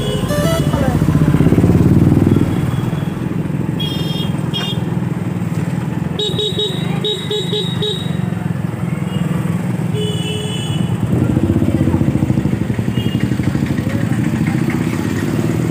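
Motorcycle engine running at low speed in busy town traffic, louder near the start and again around eleven seconds in. Vehicle horns beep briefly about four seconds in, then in a rapid string of short beeps from about six to eight seconds, and again around ten seconds.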